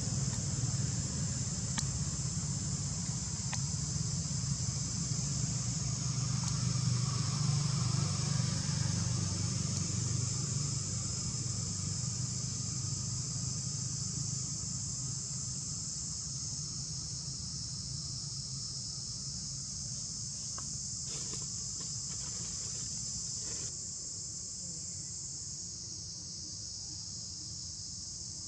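A steady, high-pitched chorus of insects, such as crickets or cicadas, drones without a break. A low rumble sits underneath it and eases off after about ten seconds.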